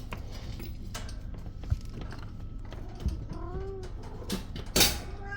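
A kitten gives one short meow that rises and falls, about three seconds in, among scattered sharp clicks and knocks, the loudest knock near the end.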